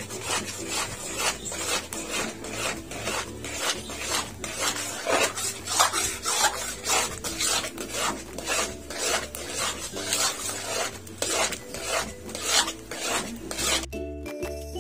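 Metal spoon scraping and stirring a thick cornstarch-and-milk pudding mixture against a stainless steel pan, in quick rhythmic strokes about two or three a second. The stirring cuts off about fourteen seconds in and music begins.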